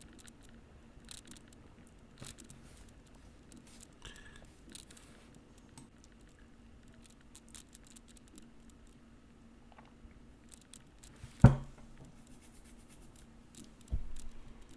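Bicycle rolling over a rough gravel track: faint, irregular crackle and small clicks of gravel under the tyres, with one sharp knock about three-quarters of the way through and a duller thump near the end.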